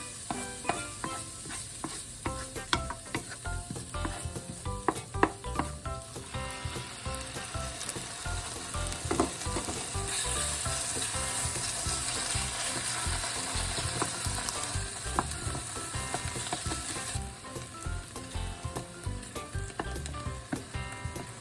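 A steady sizzling hiss, strongest from about ten to seventeen seconds in, with scattered light clicks and knocks in the first six seconds, over soft background music with short plucked notes.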